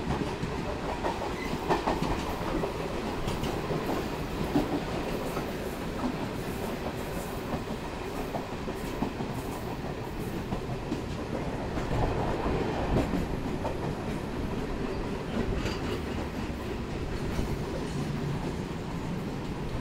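Steady rolling rumble and rattle of an electric suburban train (EMU) heard from its open doorway, with the wagons of a freight train running close alongside on the next track; wheels clack over rail joints in many short sharp clicks.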